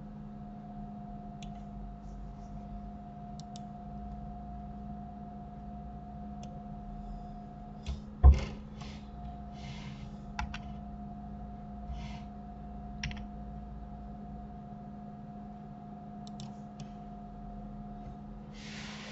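Scattered computer mouse clicks and keyboard key presses over a steady electrical hum, with one loud thump about eight seconds in.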